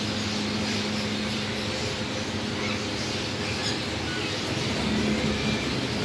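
Steady mechanical hum with a hiss underneath, and a few faint chirps from Indian ringneck parrots.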